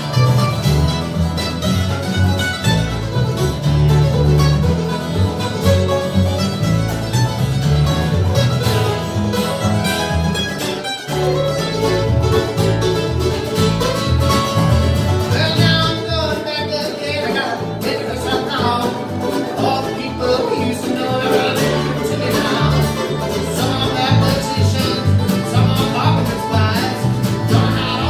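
Live bluegrass band playing: fiddle, mandolin, upright bass, acoustic guitar and resonator guitar, with the bass plucking a repeating note pattern under quick picked strings.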